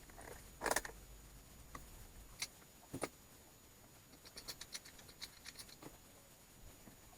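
Faint workshop handling noises: a short rustling scrape, two sharp knocks, then a quick run of small light clicks and ticks.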